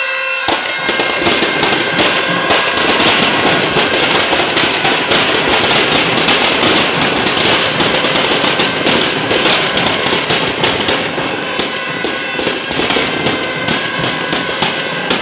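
Firecrackers packed inside a burning Ravan effigy going off in a dense, continuous crackle of rapid bangs, starting about half a second in. Music plays underneath.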